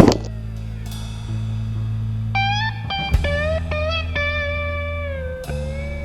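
Background music: blues-style electric guitar with bending, sliding notes over a steady bass and drum kit.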